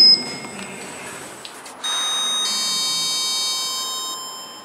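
A short high beep as a lift call button is pressed. About two seconds later a lift's arrival chime sounds, a steady ring of several high tones lasting about two seconds before fading away.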